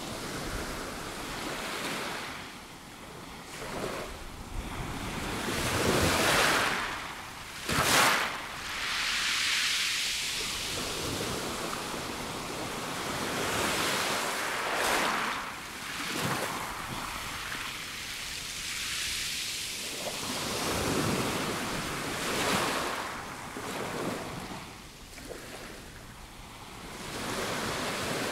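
Small waves breaking and washing up over a pebble beach, swelling and fading every few seconds. The loudest wave comes about eight seconds in.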